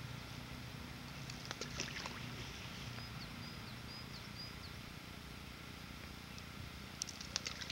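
A ball of groundbait lands in calm brook water with a soft plop about two seconds in. A few short high chirps follow.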